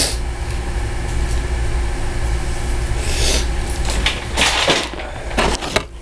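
Steady low machinery hum, with bursts of rustling and scraping from tools being handled and put away in the second half.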